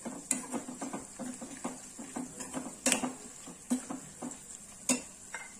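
Metal spatula scraping and clinking against a small metal kadai while stirring flat beans (sem phali) with crushed garlic and spices: a run of irregular scrapes and taps, the sharpest about three and five seconds in.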